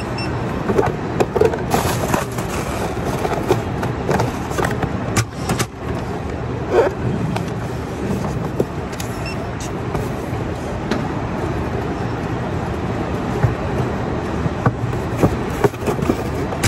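Steady hum of warehouse machinery at a packing station, with scattered knocks and rustles of items being handled and packed into a cardboard box.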